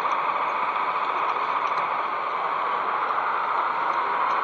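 Steady running noise of an O gauge model train carrying the camera along the track, its wheels and motor making an even whir with faint small ticks, over the murmur of an exhibition hall.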